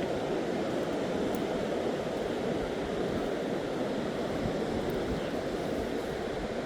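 Steady wash of ocean surf breaking on the beach, an even rushing noise without pauses.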